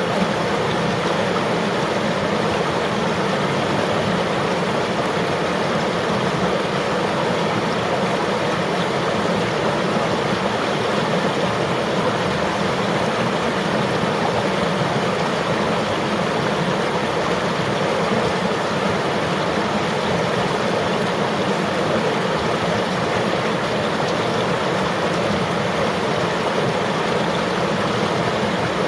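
Steady rushing of flowing river water, an even, unbroken wash of sound.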